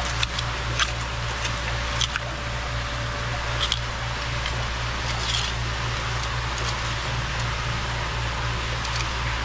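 Steady rush of running creek water with a low rumble, broken by a few sharp clicks and scrapes of stones and gravel being moved.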